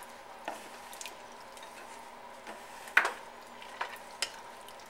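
Wooden spoon stirring cubed potatoes through broth in a nonstick pot, with a few sharp knocks of the spoon against the pot, the loudest about three seconds in. A faint steady hum runs underneath.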